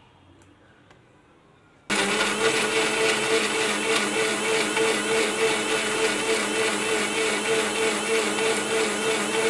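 Electric mixer grinder running with a steady hum. It cuts in abruptly about two seconds in.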